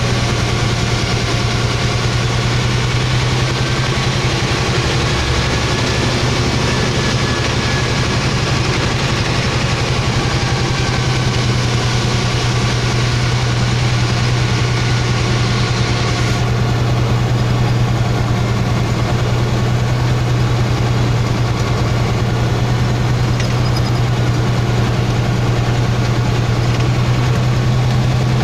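Truck's diesel engine running steadily, heard from inside the cab as a constant low hum.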